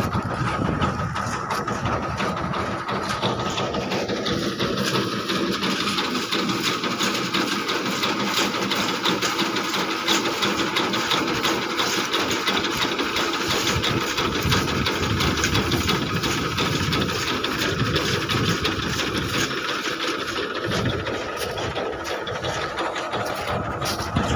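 Massey Ferguson tractor's diesel engine running steadily with its rear-mounted reaper working, cutting soybean; a continuous mechanical chatter over the engine.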